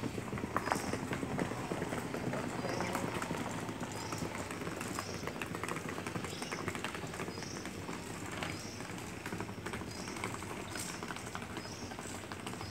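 Irregular crackles and knocks of a feral cow shifting about in dry leaf litter and undergrowth. A short high bird call repeats about once a second.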